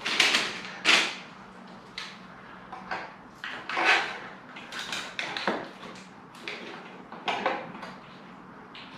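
Irregular short knocks, clicks and scrapes, about a dozen, from hands working on a UPVC bay window frame as it is fitted.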